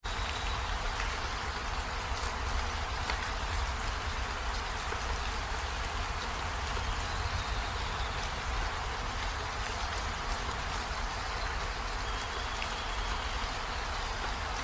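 Steady hiss of background noise with a low rumble underneath and a few faint scattered ticks.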